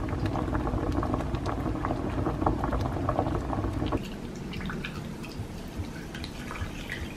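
Potatoes in a pot of water at a rolling boil, bubbling with many small pops. About four seconds in this gives way to a quieter sound of sparkling water being poured from a bottle into glasses over grapefruit pieces, fizzing and crackling.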